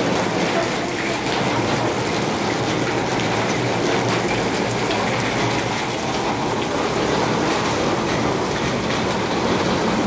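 Steady rain falling, an even rushing hiss that holds at a constant level throughout.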